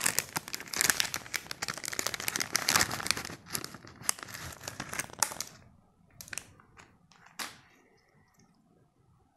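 Foil ice cream wrapper crinkling and tearing as it is peeled open by hand. Dense crinkling for about the first five seconds, then only a few scattered crackles as the wrapper comes off.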